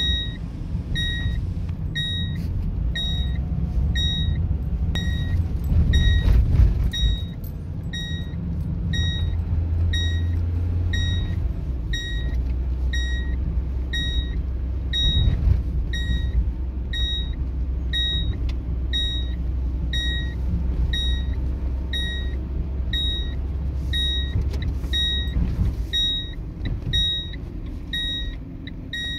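Car's seat-belt reminder beeping for an unfastened seat belt while driving: a steady run of short high beeps, about two a second. The car's engine and road rumble run underneath and are the loudest part; the engine note drops about a third of the way in.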